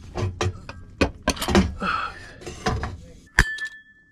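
Metal knocks and clanks from working a car's drive shaft loose with tools, ending with one sharp metal strike that rings on about three and a half seconds in.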